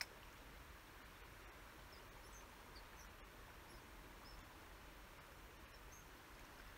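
Near silence: a faint steady hiss of the river, with a few faint, short, high chirps scattered through and a single brief click at the very start.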